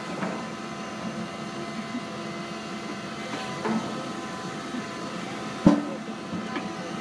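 Excavator running steadily, its engine and hydraulics giving a steady hum of several tones. A few light knocks come while the bucket works at the top of a steel drum, and one sharp knock, the loudest sound, comes about two-thirds of the way through.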